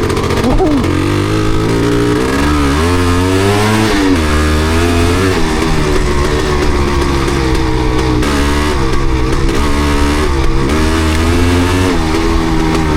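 Yamaha DT250MX single-cylinder two-stroke engine running, its revs rising and falling repeatedly with the throttle. The bike has a misfire, which the rider puts down to water on the spark plug.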